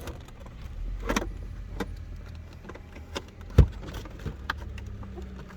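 Small plastic clicks and rattles of the BMW 523 instrument cluster and its wiring connector being handled and fitted, with one sharp knock about three and a half seconds in, over a steady low hum.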